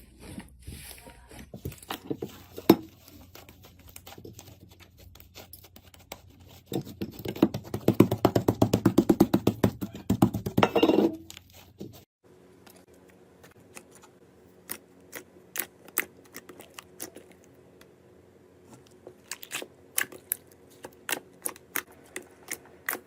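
Slime being squeezed and worked by hand, making quick sticky clicks and pops. A dense run of rapid pops builds in the middle and stops abruptly, followed by scattered sharp clicks.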